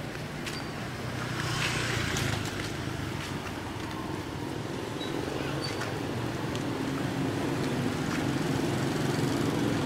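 Street traffic: motorbike and car engines running steadily as vehicles go by, with one passing louder about two seconds in.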